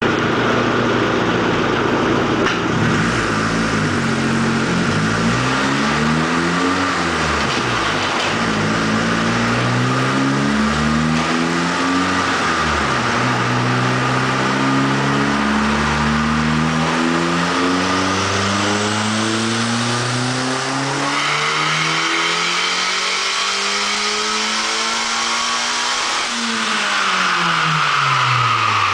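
Honda Civic four-cylinder engine being revved: several quick rises and falls in pitch, then a long steady climb up through the rev range lasting about twelve seconds, dropping back down near the end.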